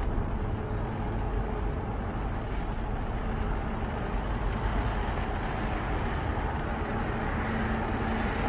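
Steady rumbling noise of a boat under way at sea, its engine running under the sound of wind and water, with a faint steady hum coming in near the end.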